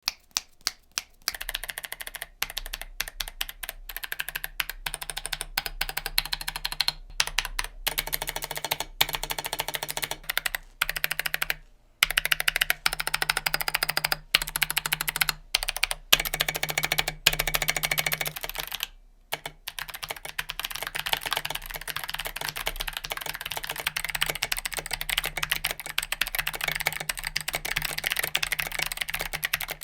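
Typing on a mechanical keyboard with Kailh Box clicky switches (Box Jade / Box Pink): quick, irregular, sharp clicks, with several brief pauses, over quiet background music.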